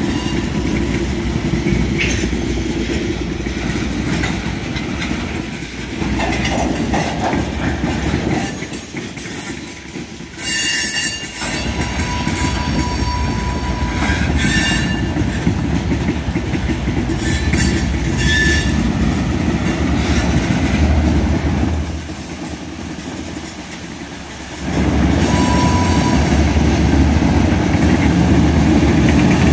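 CSX freight cars rolling past close by: a steady heavy rumble and clatter of steel wheels on the rails, easing off briefly twice. A few thin, high wheel squeals ring out for a second or two, mostly in the middle and near the end.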